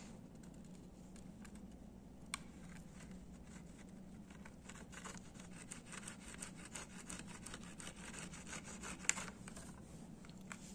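Faint rubbing and scratching of fingers handling a smartphone's back cover and its adhesive, with small ticks throughout and two sharper clicks, about two seconds in and about nine seconds in. A low steady hum runs underneath.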